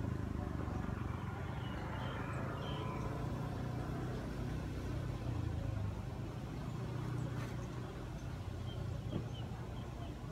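Steady low hum of an engine running, with a few faint high chirps over it.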